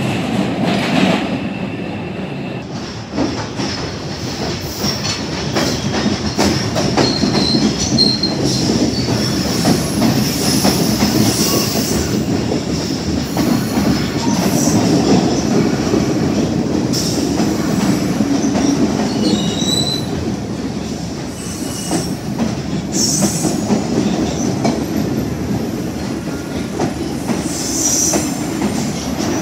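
MBTA subway train rolling through the station, steel wheels clattering on the rails with a steady rumble. A few brief high wheel squeals cut through.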